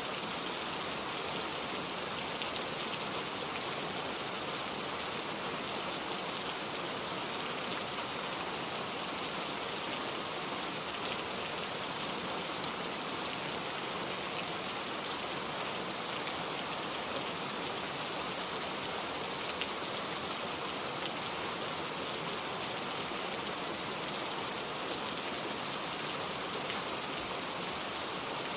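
Steady rain falling, an even hiss of rain with scattered individual drops.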